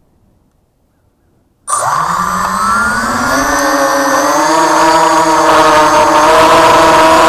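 ZMR250 FPV racing quadcopter's brushless motors and propellers spooling up: a loud whine that starts abruptly about a second and a half in, rising in pitch over a few seconds and then holding steady as the quad takes off.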